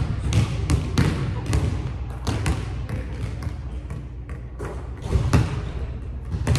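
A basketball dribbled on a hardwood gym floor: a run of sharp bounces, two to three a second, echoing in the large hall, with a short break about halfway through before the bouncing resumes.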